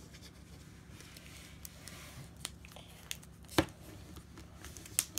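Foil wrapper of a Kinder Joy egg being peeled and crinkled by small fingers: faint rustling, with a few sharp clicks, the loudest about three and a half seconds in.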